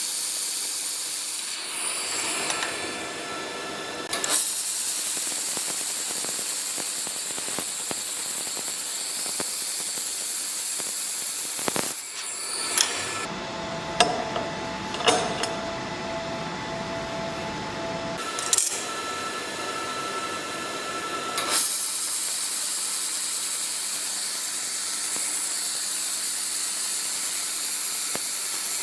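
Handheld fiber laser welder welding stainless steel: a steady hiss in several long passes that stop and start. Between passes come a few sharp clicks and a faint steady tone.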